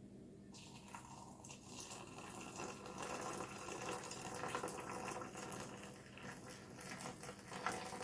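Water poured in a steady stream from a kettle into a porcelain mug, filling it. The pour starts about half a second in and stops abruptly right at the end.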